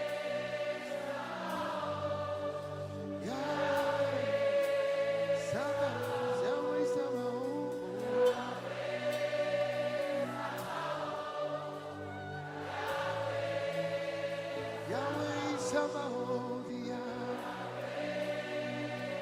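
Gospel worship singing: a choir of voices holding long, drawn-out notes over sustained low instrumental notes that change every few seconds.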